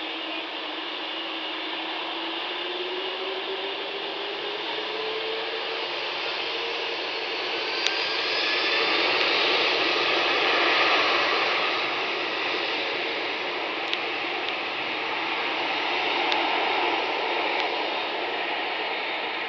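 Boeing 747-400's four jet engines running at high thrust on the runway: a loud, steady rush with a faint tone rising in pitch over the first several seconds, swelling loudest around the middle.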